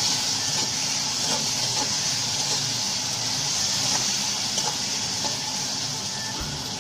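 Chopped onions and tomatoes sizzling in hot oil in a pan, a steady hiss.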